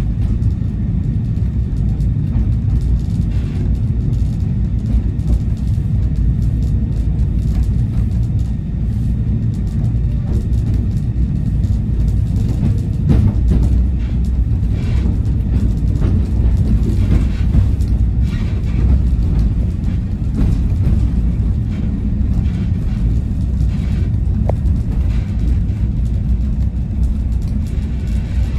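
Railway carriage in motion, heard from inside the coach: a steady low rumble of the wheels running on the rails.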